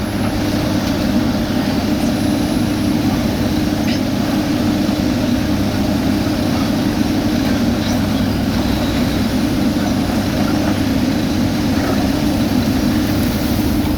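Heavy diesel road-construction machinery running steadily, a continuous loud engine drone.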